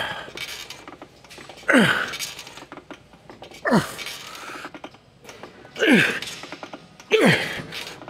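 A man grunting with the effort of each rep of a weight-machine set: four short grunts that drop in pitch, about one every two seconds.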